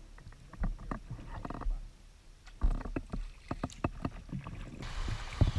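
Kayak paddle strokes on calm water: irregular drips, splashes and light knocks from the paddle, with a heavier thump near the end. Shortly before the end a steady rush of fast-flowing water comes in.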